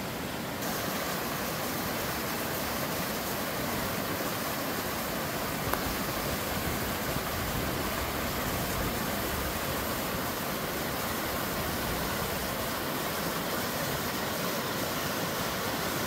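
Small waterfall cascading over granite ledges into a mountain stream: a steady rush of water, which steps up a little louder and brighter about half a second in.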